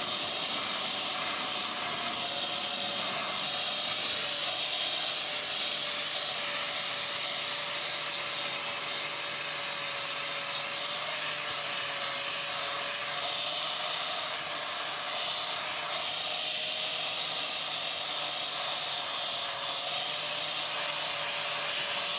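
Angle grinder running steadily with its disc pressed on the face of a steel C-purlin cutting blade: a steady motor whine under a continuous abrasive hiss. The blade is being ground level because it was jamming in use.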